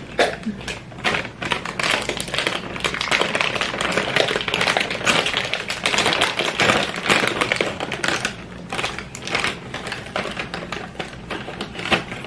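Crinkling and crackling of a plastic snack bag being handled and twisted open, a dense run of small irregular crackles that goes on throughout.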